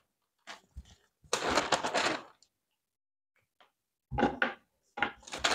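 Brown pattern paper rustling and crinkling as a sheet is handled and laid down, in a few short bursts, the longest lasting about a second.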